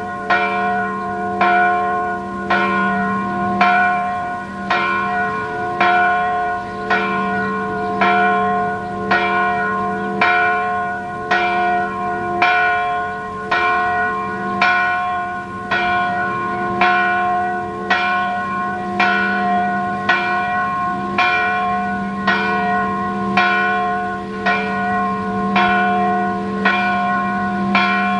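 Full peal of three swinging church bells, tuned C sharp, F sharp and A sharp and hung and rung in the typical Hungarian way. Their strikes come in a steady, overlapping run, and each stroke rings on into the next.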